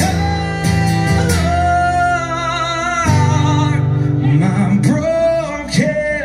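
A man singing long held notes over a strummed acoustic guitar, in a solo live performance.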